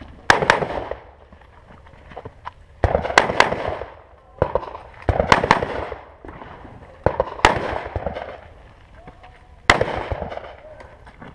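Rifle shots fired in quick pairs and triples: five strings about two to two and a half seconds apart, each shot sharp and followed by a short echo off the range.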